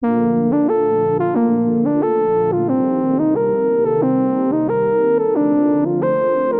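Background music: a synthesizer or electric-piano keyboard playing sustained chords that change about every half second to second.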